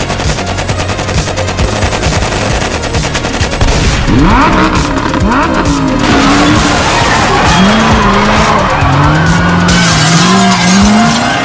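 Automatic rifle fire, a rapid stream of shots for about four seconds, then car engines revving and tyres squealing. A crash of smashing goods comes near the end.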